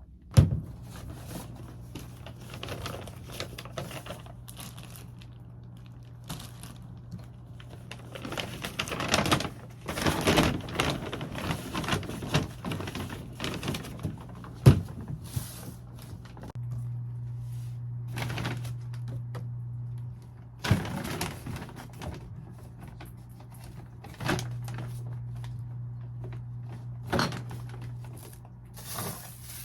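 Scattered clicks, taps and rustling of things being handled, with two sharp louder clicks, over a steady low hum that grows louder twice for a few seconds.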